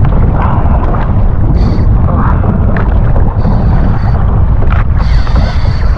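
Heavy wind buffeting the microphone aboard a small fishing boat: a steady, loud low rumble, with a faint high whine that comes and goes a few times.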